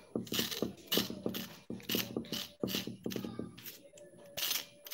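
Large kitchen knife scraping the skin off a cucumber: quick runs of short rasping strokes, several a second, with brief pauses between runs.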